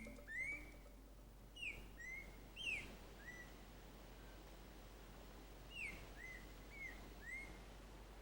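Faint short whistled bird calls, some notes falling and some rising in pitch, in a cluster during the first three seconds and another just after the middle.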